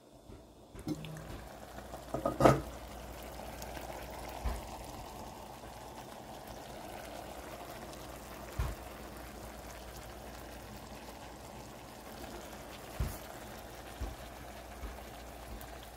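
Tilapia in black bean sauce simmering in a stainless steel pan: a steady low bubbling hiss. A sharp knock comes about two and a half seconds in, and a few lighter knocks follow later.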